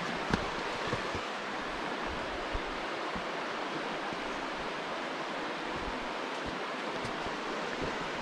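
The shallow River Wye flowing over stones, a steady rush of water, with a few faint knocks.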